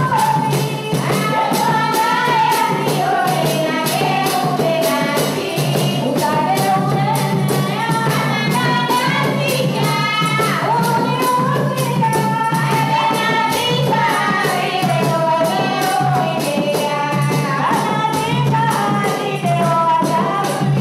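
Live traditional music: singing, with a melody that glides up and down, over a double-headed rope-laced drum and a pair of large hand cymbals clashing in a steady, fast beat.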